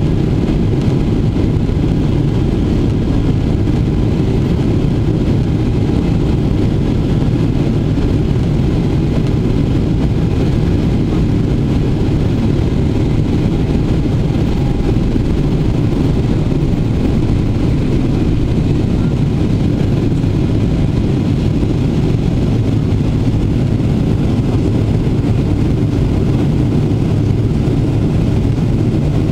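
Boeing 777-300ER's GE90-115B engines at takeoff thrust, heard inside the cabin over the wing: a steady low rumble through the takeoff roll and lift-off.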